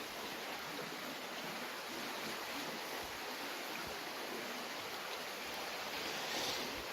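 Steady sound of a creek's water flowing.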